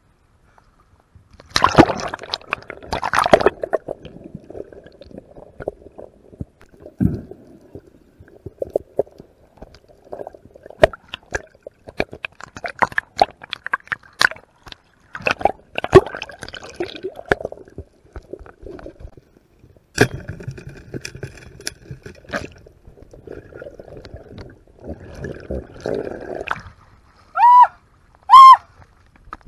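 Seawater sloshing, gurgling and splashing around a camera carried at the sea surface and dipped under, with many sharp clicks and knocks. Near the end come two short, loud pitched sounds, each rising and then falling.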